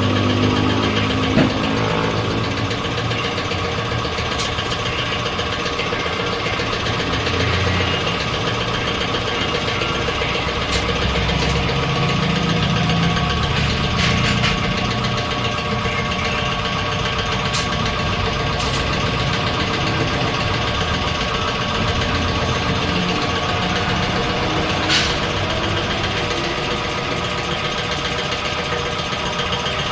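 A motor or engine running steadily at an even speed, with a few sharp clicks or taps over it.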